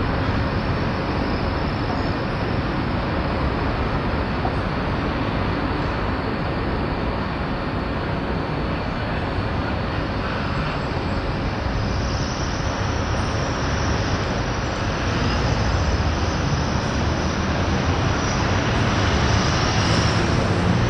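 Steady background rumble of road traffic and railway noise, with no single event standing out, growing a little louder over the last few seconds.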